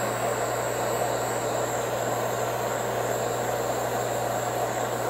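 Handheld gas torch burning with a steady hiss, its blue flame heating a stuck plug in an engine block to loosen it.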